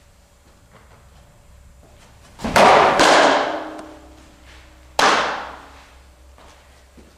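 Pitched softballs striking their target: a loud smack about two and a half seconds in, a second half a second later, and a third at about five seconds, each echoing in the room.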